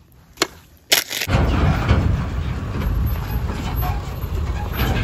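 Two sharp clicks, then from about a second in a steady rumble of a pickup truck towing a dump trailer driving past, mixed with wind buffeting the microphone.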